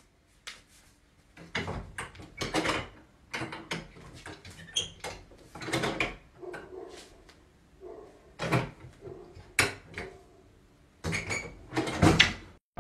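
A wooden door being handled: scattered clicks, knocks and rattles, irregular and unevenly loud.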